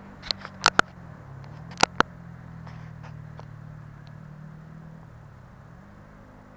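Low, steady hum of a distant engine, its pitch dropping a little about a second in and rising again near the end. Five sharp clicks fall in the first two seconds and stand out above the hum.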